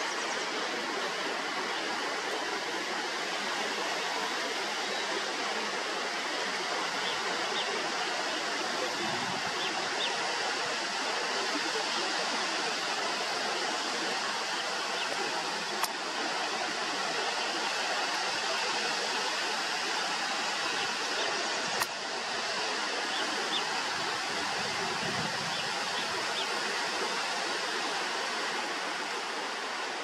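Steady rush of a tall plunge waterfall, water falling and splashing continuously, with two brief clicks in the second half.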